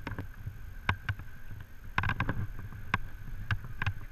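Abseiling rope and metal hardware handling close to the microphone: irregular clicks, knocks and scrapes as the gloved hands feed the rope through the descender and the feet touch the tower wall, over a faint steady whine.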